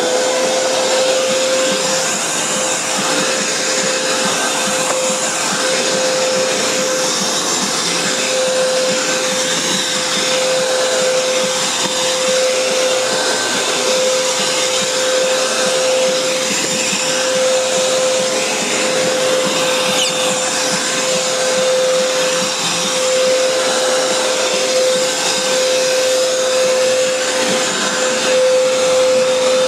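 Upright vacuum cleaner running steadily over carpet: a constant motor whine at one pitch over the rush of air, already at full speed.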